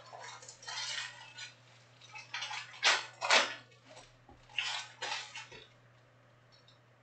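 Stacks of Panini Prizm trading cards being handled on a tabletop: a run of quick scraping, sliding and tapping sounds as cards are laid onto piles and squared up, the loudest two close together about three seconds in. The handling stops about six seconds in.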